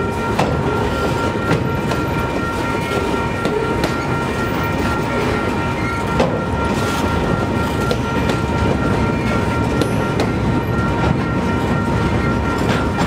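Freight train rolling past steadily, its wheels clattering over the rail joints with scattered sharp clicks, and a thin steady high tone running underneath.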